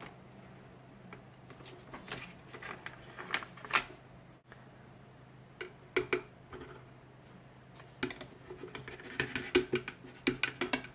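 Light plastic clicks, taps and scrapes of toy kitchenware handled on a tabletop, in uneven clusters with a short break about four seconds in. In the second half a plastic spatula taps and scrapes in a plastic toy frying pan.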